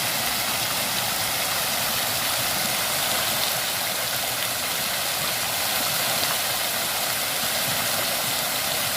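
Spouting water fountain running: a steady, even rush of falling water from its jets.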